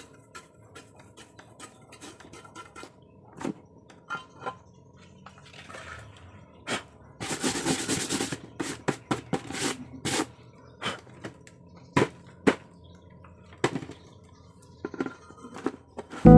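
Scattered sharp clinks and knocks of hard objects being handled, with a brief rush of scraping or hissing noise about seven seconds in.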